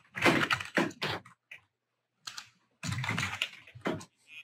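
Typing on a computer keyboard: two quick runs of keystrokes, each about a second long, with a pause of a second and a half between them.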